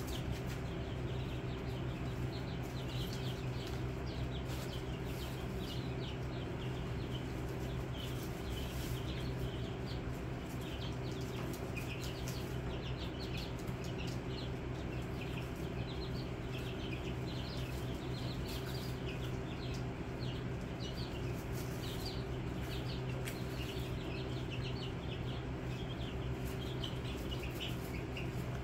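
A flock of young chicks peeping constantly in a brooder: many short, high chirps overlapping throughout, over a steady low hum, with occasional short clicks.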